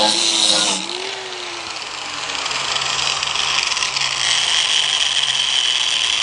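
Drill Master angle grinder with a 60-grit flap disc grinding a welded metal plate for about a second. It is then lifted clear and runs free, with a steady high whine in the second half.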